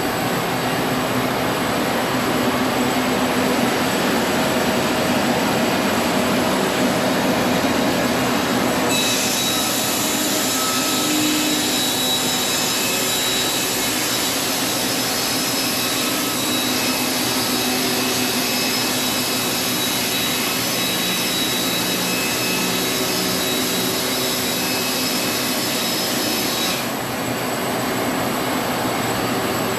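Sawmill running steadily while sawing an antique heart pine beam; a brighter, higher-pitched whine joins about a third of the way in and drops away near the end.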